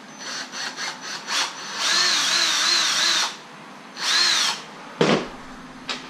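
Cordless drill boring a hole through a rubber rod-holder tab into 1.5-inch PVC pipe. It starts with a few short trigger pulls, then runs longer with its motor speed wavering under load, then makes one more short run. A sharp knock comes about five seconds in.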